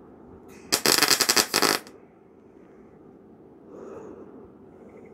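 Wire-feed welder laying a tack weld on a thin-gauge steel bracket: a loud, fast arc crackle starts about a second in and lasts about a second before cutting off.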